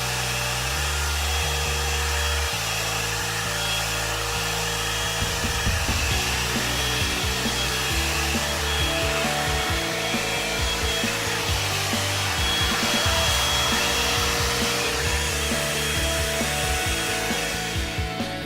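One-step hot-air brush hair dryer blowing steadily as it is twisted through the hair, with background music playing over it; the dryer noise falls away near the end.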